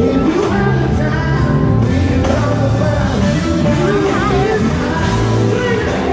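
Live R&B band with drums, guitar and keyboards playing while a man sings lead, with long held and bending vocal lines and a quick melismatic run about four seconds in, recorded from within the audience in a large hall.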